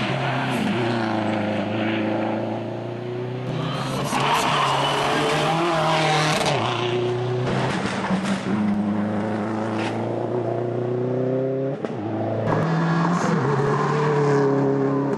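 Subaru Impreza WRX STi rally car's turbocharged flat-four engine pulling hard under acceleration. Its pitch climbs and then falls back sharply at each of three gear changes.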